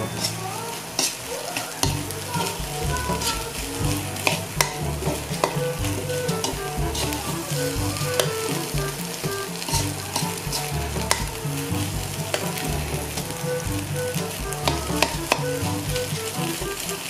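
Sardine sisig with green chilies sizzling as it fries in a metal wok, stirred and scraped with a metal spatula, with frequent sharp clicks of the spatula against the pan.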